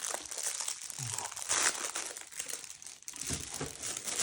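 Plastic packaging crinkling and rustling in irregular bursts as fidget toys are pulled out of their wrapping.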